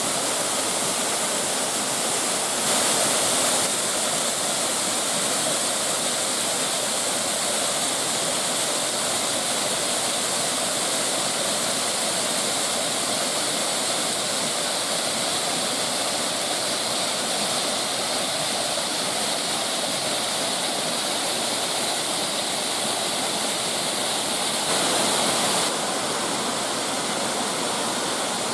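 Waterfall rushing steadily, swelling briefly twice.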